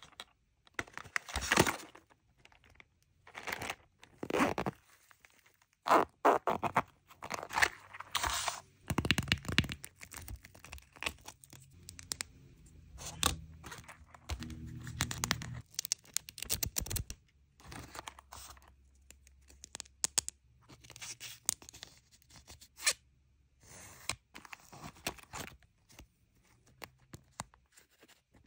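Toy packaging and small plastic-wrapped pieces handled and torn open: a long, irregular run of tearing, crinkling and scraping sounds with small knocks.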